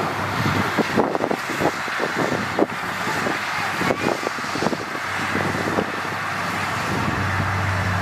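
Heavy diesel earthmoving machinery running steadily, with many irregular knocks and clanks over the first six seconds or so; the engine's low hum grows stronger near the end.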